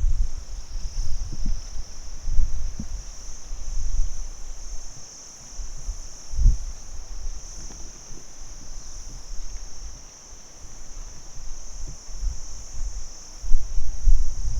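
Crickets chirping together in a steady, high, continuous chorus. Irregular low rumbles come and go underneath.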